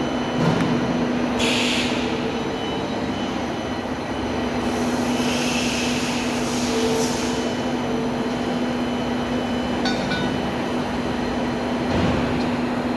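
Tube punching machine running with a steady motor hum. A hiss comes twice, briefly about a second and a half in and longer from about five to seven seconds, with a few ticks around ten seconds and a dull thump near the end.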